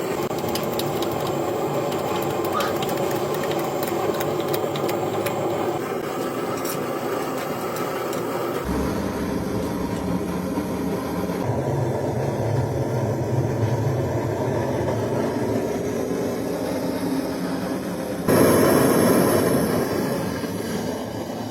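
Heavy machinery running steadily, a continuous mechanical noise. The sound changes abruptly about nine, eleven and eighteen seconds in, becoming loudest near the end.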